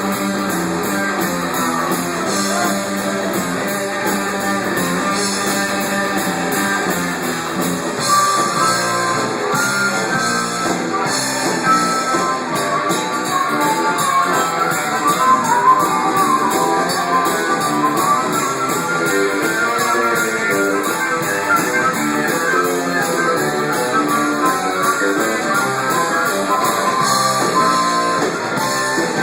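Live rock band playing an instrumental passage between sung verses, with guitar to the fore over bass and drums.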